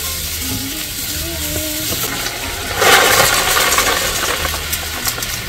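Food sizzling in a hot pan, with a louder rush of hissing about three seconds in.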